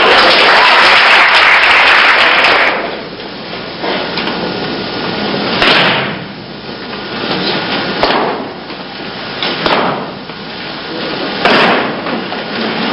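Bodies slapping and thudding onto a mat as aikido partners are thrown and take breakfalls: about five sharp thuds, roughly two seconds apart. A loud rushing noise fills the first two or three seconds, then drops away.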